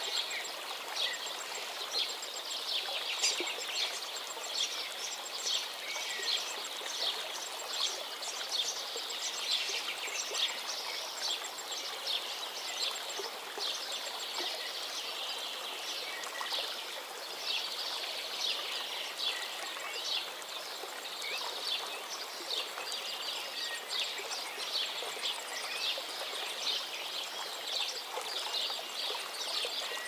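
Several songbirds chirping and singing over one another, a dense, constant twittering of short high notes and trills, over a steady background rush.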